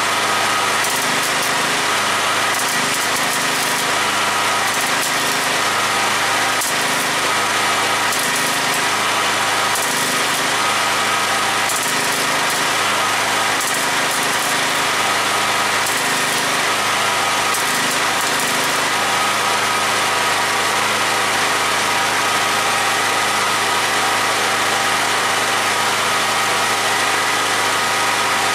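An electric power tool's motor running continuously at a steady speed, a constant whine over a wide rushing noise.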